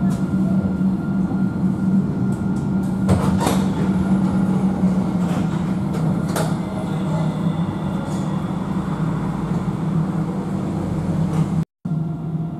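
Inside a moving Alstom Citadis tram: a steady running hum of the traction drive and wheels on the rails, with a few short clicks about three and six and a half seconds in. The sound cuts out for a moment near the end.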